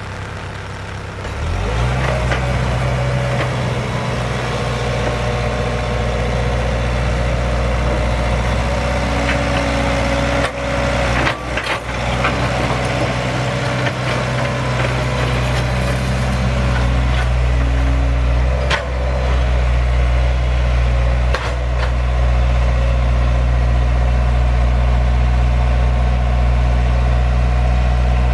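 Heavy machinery's diesel engine running steadily, picking up about a second and a half in. A few sharp knocks or clanks come over it partway through.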